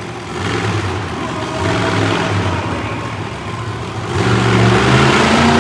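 Monster truck engine revving in surges while the truck balances on its nose, rising three times, with the loudest and longest surge about four seconds in.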